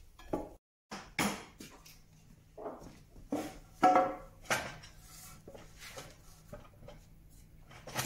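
Irregular knocks and clunks of a wooden plank being set down on a concrete floor under the legs of a steel lever briquette press; the loudest, about four seconds in, rings briefly like struck metal.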